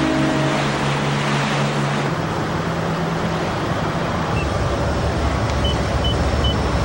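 Steady rumble and wash of a steamship's engine and the sea. Some steady low tones fade out one by one in the first few seconds, and short high beeps repeat about two or three times a second near the end.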